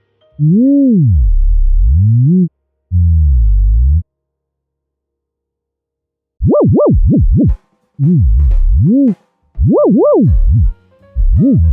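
Synthesized tones gliding smoothly up and down in pitch, with a heavy low bass underneath. The pitch follows the height of a pen tracing the letters of a name. The tones come in short swooping phrases, with a silence of about two seconds near the middle and faster, steeper sweeps after it.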